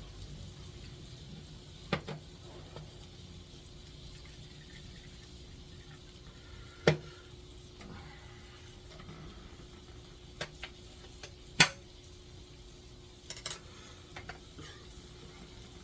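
Dishes and utensils clinking and knocking a handful of times, the loudest knocks about seven and twelve seconds in, over a faint steady hum.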